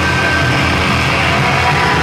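A live rock band playing loud with electric guitar.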